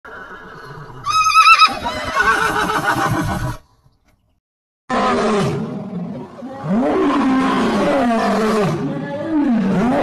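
A horse neighs about a second in, a high wavering whinny. After about a second of silence, a male lion growls and roars in a long run of low moans that rise and fall in pitch.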